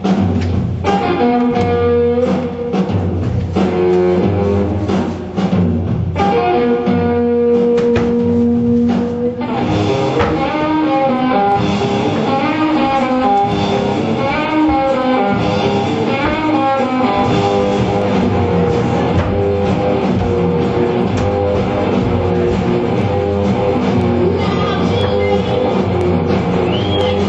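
Rock music on guitar and drums: short stop-start chords for about the first ten seconds, then the full band plays on without a break under a bending lead line.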